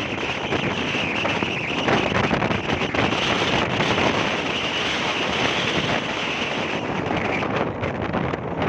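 Strong storm wind buffeting the microphone over surf breaking on the beach: a steady, loud rush of noise.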